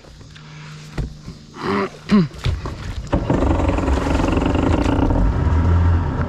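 Two-stroke Sea-Doo jet ski engine at low idle, then taking throttle about two and a half seconds in and running steadily as the jet ski pulls away. A knock about a second in.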